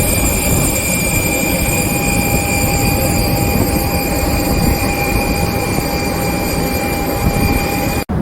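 Steady noise of a jet airliner's engines with a constant high whine over a deep rush. It cuts off abruptly just before the end, and a duller noise follows.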